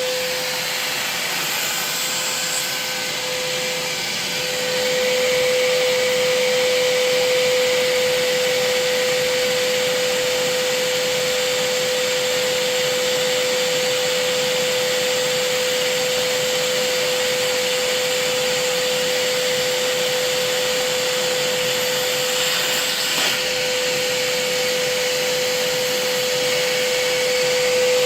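Vacuum running steadily with a high, even whine over a rushing noise; it gets louder about four and a half seconds in.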